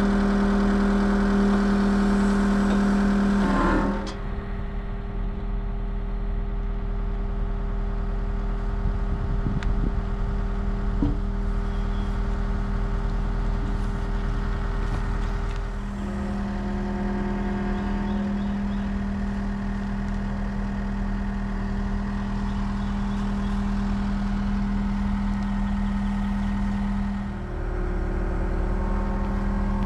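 Heavy construction machine's diesel engine running steadily, its hum changing in pitch and level about 4 seconds in, again near 16 seconds and briefly near the end as the load or throttle changes.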